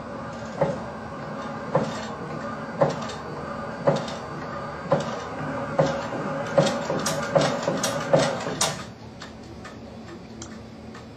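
Tabletop shake table running under two small model building frames: a steady motor hum with regular sharp knocks, about one a second, that come faster and faster until the shaking stops about nine seconds in.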